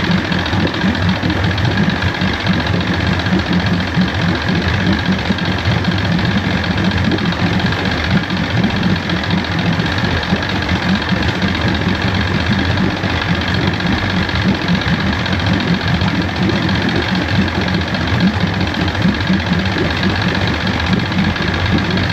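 1973 Johnson 65 hp two-stroke outboard running steadily with its thermostat removed; the sound cuts off near the end.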